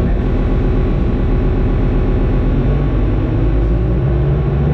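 Loud, dense experimental electronic noise played live: a low rumbling drone with a fast stuttering texture and a few held pitched tones, from tabletop synths and effects.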